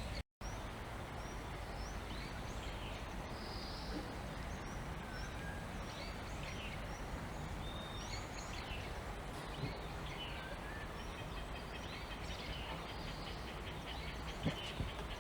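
Forest birds chirping and calling in many short notes and brief whistled glides over a steady, even rush of background noise, with a few soft knocks near the end.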